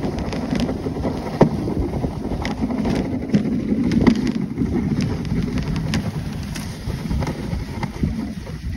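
Dog sled running over a packed snow trail behind its dog team: a steady scraping rumble of runners on snow with irregular sharp knocks and clicks from the sled. Wind buffets the microphone.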